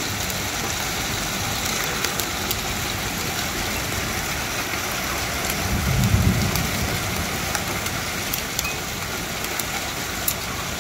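Heavy hail falling, a steady hiss of hail and rain hitting pavement, cars and the window ledge, with sharp clicks of single hailstones striking close by. A low rumble swells briefly about six seconds in.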